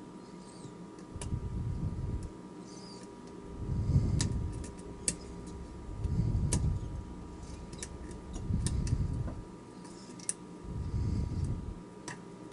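Picking a cast-aluminium mortise lock cylinder with a hook pick and tension wrench: scattered small sharp clicks of the pick working the pins, over a low rushing swell every two to three seconds and a faint steady hum.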